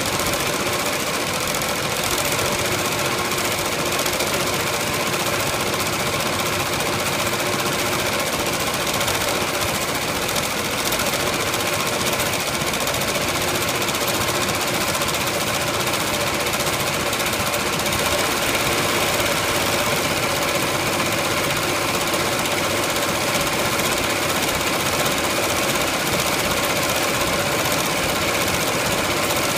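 Multi-needle embroidery machine stitching a fill at full speed: a fast, even needle clatter with a steady mechanical hum, unbroken throughout.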